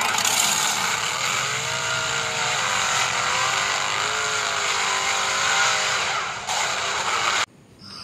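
Small RC rock crawler's electric motor and gearbox whining as it climbs, the pitch rising and falling with the throttle over a constant hiss of drivetrain and tyre noise. The sound cuts off suddenly about seven and a half seconds in.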